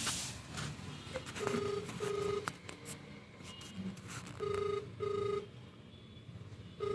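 Indian-style telephone ringback tone through a mobile phone's loudspeaker: a double beep repeating about every three seconds, twice in full, the called number ringing with no answer. A brief handling bump at the start.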